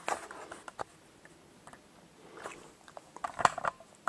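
Scattered light clicks and rustles of handling at a lab bench as the camera is brought in close over the bench, with the loudest cluster of clicks about three and a half seconds in.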